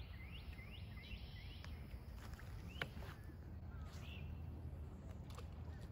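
Quiet lakeside ambience with a bird calling a quick run of rising chirps, about three a second, through the first second and a half, then a few scattered single chirps and faint clicks over a low steady background noise.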